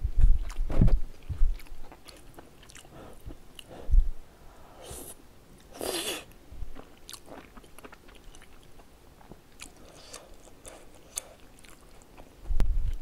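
Close-miked eating sounds of cheese tteokbokki: soft chewing, lip smacks and small wet clicks. There is a louder slurp of a bite about six seconds in, and dull low thumps near the start, about four seconds in and near the end.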